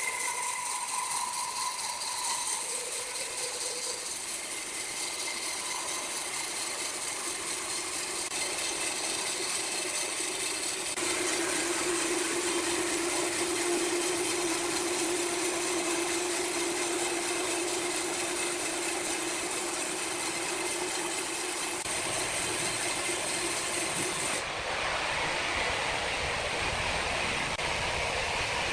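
Sawmill machinery running steadily: a continuous mechanical hiss, with a humming tone for a stretch in the middle. The sound changes abruptly a few times.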